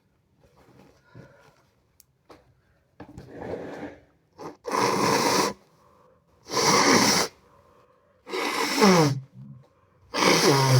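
A person sneezing hard four times in a row, about two seconds apart, after a drawn-in breath. The last two sneezes end in a voiced cry that drops in pitch.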